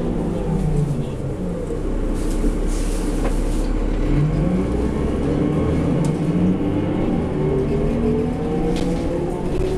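Cummins ISL inline-six diesel and ZF Ecomat six-speed automatic of a New Flyer D40LF transit bus, heard from inside the cabin. The pitch falls near the start as the bus slows, then rises in steps from about halfway through as it accelerates again.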